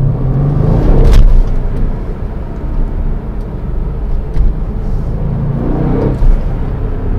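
Mercedes-AMG C63 S Estate's 4.0-litre twin-turbo V8 heard from inside the cabin while driving in comfort mode: a steady low rumble whose pitch rises twice as the car pulls away, about a second in and again near six seconds. A short sharp click comes at the peak of the first rise.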